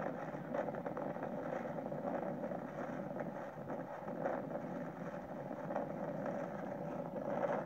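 Steady rushing wind noise standing in for a tornado, with no pauses or changes in strength.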